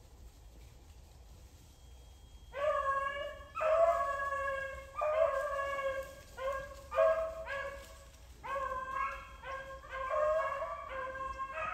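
A pack of beagles baying in a string of long, pitched hound cries that start about two and a half seconds in, several voices at times overlapping. This is the pack giving tongue as it runs a rabbit's scent.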